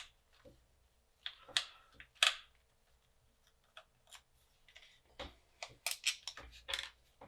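Scattered small clicks and taps as a screwdriver works screws out of a hot air rework station's plastic handpiece, with a quicker run of clicks over the last couple of seconds.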